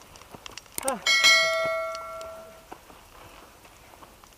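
A single bell strike about a second in, ringing on in several clear tones that die away over about a second and a half. It is the notification-bell sound effect of a subscribe-button animation.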